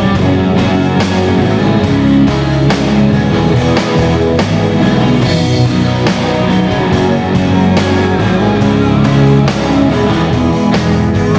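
Rock song playing, with electric guitars over a steady drum beat.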